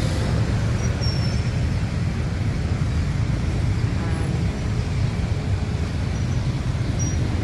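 Street traffic of motorbikes and cars passing, a steady, even noise.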